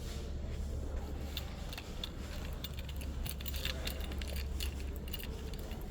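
Light, irregular clinking and jingling of small hard objects being handled, coming thicker from about a second and a half in, over a steady low hum.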